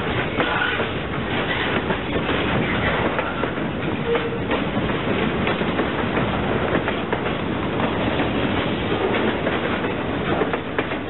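Freight train's boxcars and tank cars rolling past close by: a steady rumble of steel wheels on the rails, with frequent clicks and clanks from wheels and couplers.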